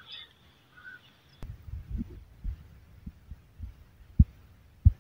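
A shovelful of sand tipped into a planting sack: a sharp click about a second and a half in, then low, dull, irregular thumps and bumps as the shovel knocks on the sack and the sand drops in.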